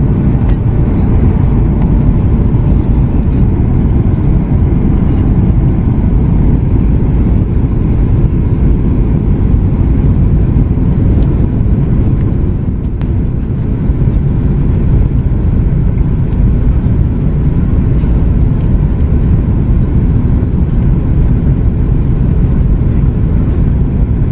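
Steady rush of airliner cabin noise inside a Boeing 737 MAX 8-200: engine and airflow noise heard from a window seat in flight, even and unchanging, deepest in the low range.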